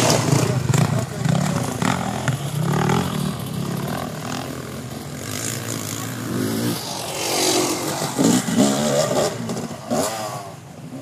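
Dirt-bike engines idling and revving, with people talking over them.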